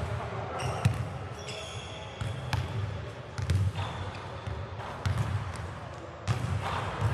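Basketballs bouncing on a hardwood gym court: irregular thuds, some overlapping, with indistinct talk among the players.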